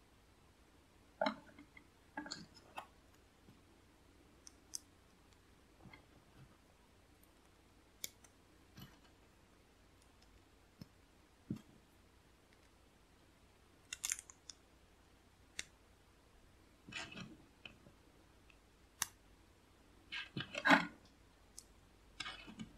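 Plastic LEGO pieces clicking and snapping as they are handled and pressed together by hand: scattered sharp clicks and small knocks with quiet gaps between, the loudest cluster near the end.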